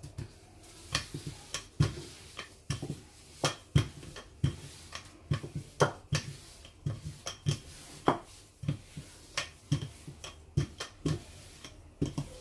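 Wooden rolling pin rolling out dough on a countertop, with irregular light knocks and clacks, about two a second, as the pin is pushed, lifted and set down.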